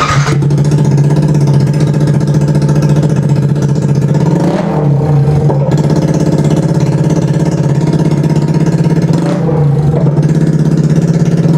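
Yamaha R15M's 155 cc single-cylinder engine starting and running loud and steady with no exhaust silencer fitted, just the open pipe. The throttle is blipped briefly about five and again about nine seconds in.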